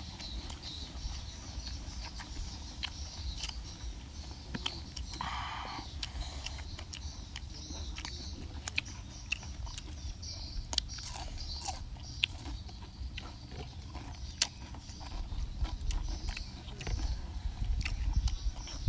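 Crunching and chewing of raw vegetables and green papaya salad, with many short crisp bites scattered through, over a low rumble.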